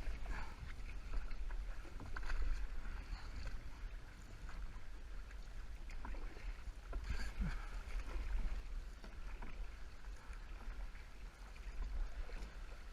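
Paddle strokes dipping and splashing in river water, irregular splashes over a steady wash of moving water, with a constant low rumble on the microphone.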